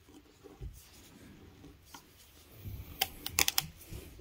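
Oil filter cutter scoring the metal can of an oil filter as the filter is turned by hand against its blade: quiet rubbing and scraping, with a cluster of sharp clicks about three seconds in.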